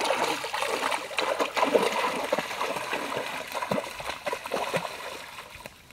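Splashing in shallow muddy water: hands slapping and grabbing at a fish, then feet wading through the water, irregular splashes that fade off near the end.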